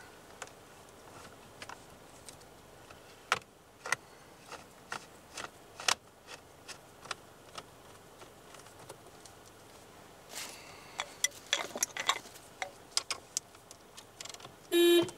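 Scattered light clicks and ticks of a hand tool driving the airbag module's retaining screws into a 2006 Toyota Corolla's steering wheel, coming faster from about ten seconds in. Near the end a short steady honk sounds, the car's horn.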